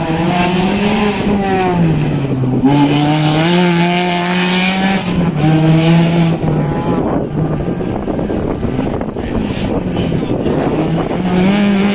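Single-seater formula race car engine running hard on track, its pitch rising and falling as it revs. The pitch drops sharply twice in the first half, as at gear changes.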